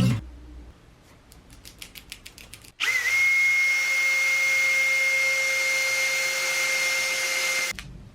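A few light clicks, then a Makita cordless trimmer (compact router) starts up about three seconds in and runs at a steady speed with a high, even whine, stopping abruptly near the end.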